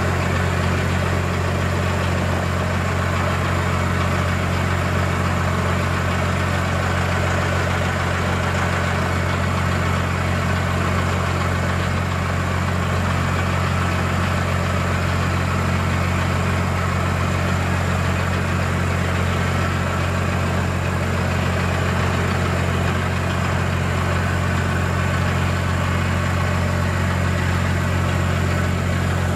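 A loader's engine running steadily at an even idle while its hydraulics slowly lift a strapped semi-truck radiator out of the engine bay.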